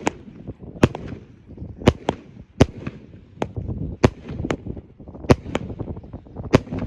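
A 25-shot salute cake firing its shots one after another as about eleven sharp, loud bangs, irregularly spaced half a second to a second apart.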